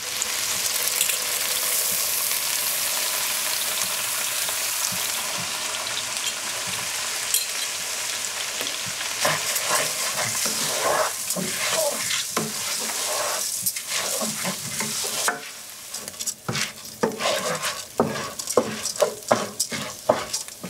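Risotto rice hitting a hot oiled pan with shallots and sizzling as it toasts, stirred with a wooden spatula whose strokes scrape through the grains. The sizzle drops about three quarters of the way in, leaving the stirring strokes more distinct.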